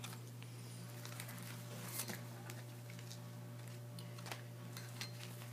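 Faint handling noise of decorated paper and chipboard calendar pieces being moved: a few light taps and rustles over a steady low hum.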